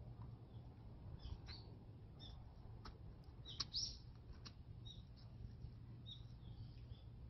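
Faint, scattered chirps of small birds, short high calls coming every second or so, with a few sharp clicks among them. The loudest chirp comes about three and a half seconds in.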